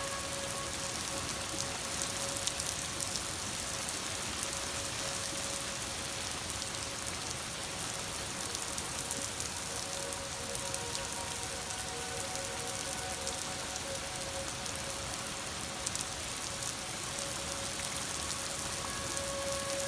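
Outdoor tornado warning siren sounding one steady tone, strong at first, fading through the middle and loud again near the end, over the steady hiss of falling rain.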